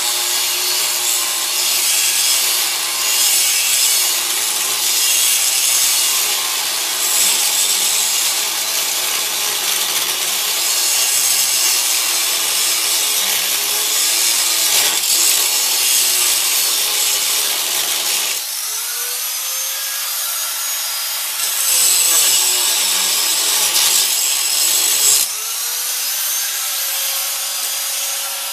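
Electric angle grinder cutting into a seized U-joint held in a vise. It is steadily loaded for most of the time. About two-thirds through it comes off the metal and its whine rises as it spins free, goes back in for a few seconds, then lifts off again with another rising whine. The U-joint is stuck fast and is being cut so that it can be driven out.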